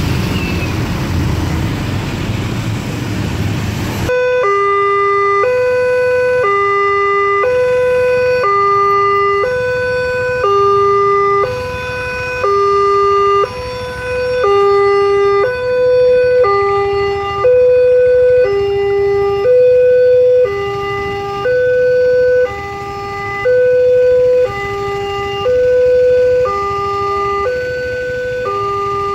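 Motorcycle traffic for about the first four seconds. Then a railway level crossing's electronic warning alarm starts suddenly and sounds a steady two-tone pattern, a lower and a higher tone alternating about once a second, warning that a train is approaching.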